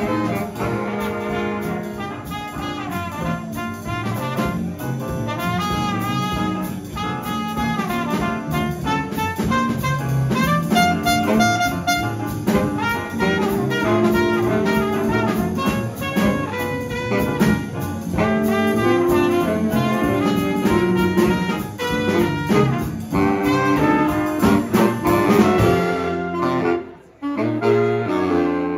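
Jazz big band playing a blues live: trumpets and saxophones over a drum kit with cymbals. The band drops out for a brief moment near the end, then comes back in.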